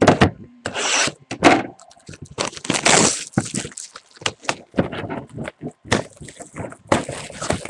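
A trading-card box and its wrapping being handled and opened: a string of crackling, scraping and tearing noises from plastic wrap and cardboard, with sharp clicks.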